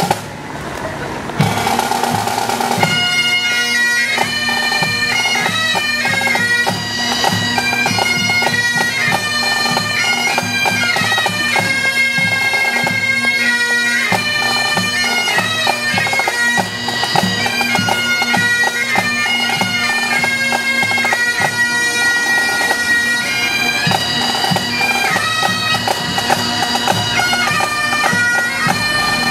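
Pipe band playing: bagpipes sounding a tune over a steady drone, with drums beating the rhythm underneath. The tune comes in about three seconds in.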